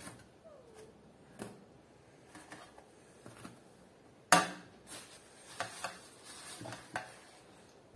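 Baked rolls and kitchenware handled on a table: a metal baking tray and a glass dish give scattered light taps and knocks, with one sharper knock about four seconds in.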